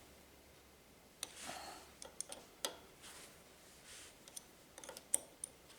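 Faint, irregular metallic clicks and light scraping from a spanner working the knife-retaining screws in a planer thicknesser's steel cutter block as they are nipped up.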